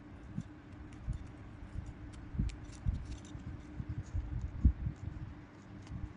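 Handling noise from fingers working a small plastic lure blade and metal ring: irregular soft knocks and light clicks, with the sharpest knock about three-quarters of the way through. A faint steady hum lies under it.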